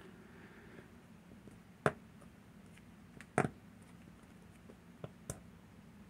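Sparse small metallic clicks and taps from tweezers and tools working the pins and parts of a Miwa VM88 cam lock being disassembled: about four or five separate clicks, the loudest about two seconds in.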